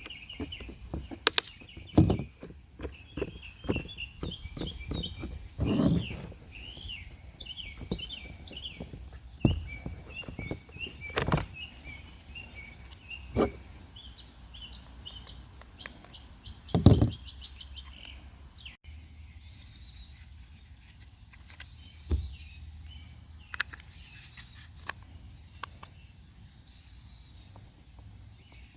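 Small birds chirping and singing, with scattered clicks and several sharp knocks, the loudest about two seconds in and twice more before two-thirds of the way. After a brief dropout, the birds give repeated falling trills.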